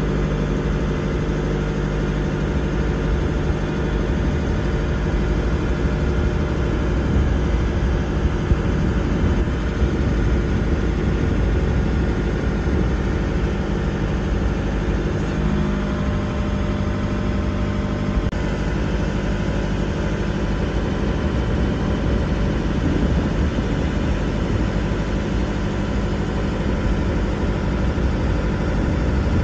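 Genie S65 telescopic boom lift's engine running steadily while its hydraulics raise the boom. The engine's tone shifts slightly about halfway through.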